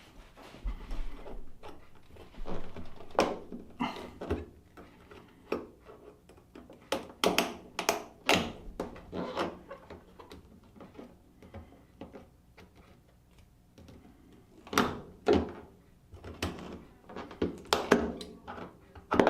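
Irregular knocks, clicks and thuds from hands-on work at a front-loading washer's door: the spring retaining wire being worked into the groove of the rubber door seal.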